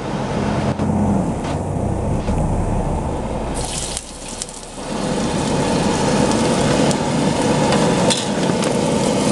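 A steady low hum. About three and a half seconds in, hot oil in a steel wok starts sizzling as chopped vegetables go in, and the sizzle carries on steadily.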